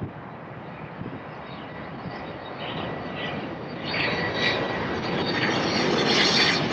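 Jet airliner's turbofan engines approaching, a steady rumble that grows louder about two-thirds of the way through, with a high whine coming in above it.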